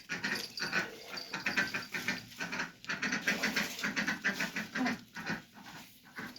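Animal noises: a rapid, irregular run of short sounds that thins out after about five seconds.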